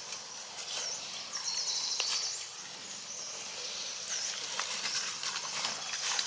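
Outdoor ambience: faint, high-pitched chirps in quick runs over a steady background hiss, with scattered light clicks and rustles.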